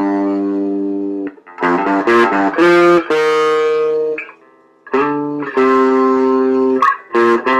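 Squier Stratocaster electric guitar playing a riff of held, ringing chords, with a pause of under a second about halfway through and short clipped stops near the end.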